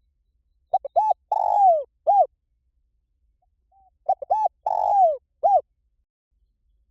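Spotted dove cooing in two phrases about three seconds apart, each a few short coos, then a longer coo that falls in pitch, then a final coo.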